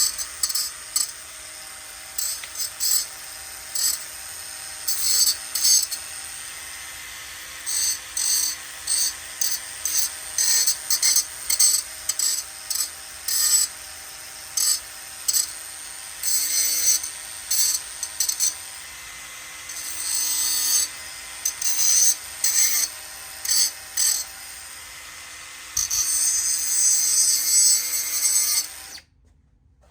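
An electric abrasive power tool running steadily on sheet steel, its motor giving a constant hum while many short, irregular scraping passes come and go about one or two a second as the abrasive bites the metal. The sound stops abruptly near the end.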